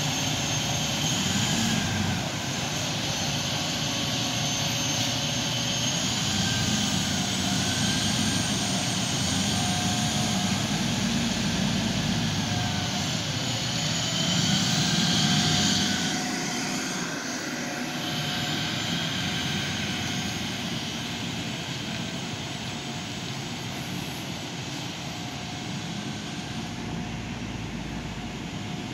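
Fire department ladder truck's diesel engine running as the truck drives off, a steady low rumble with hiss and faint wavering whine. It grows a little louder past the middle, then fades somewhat as the truck moves away.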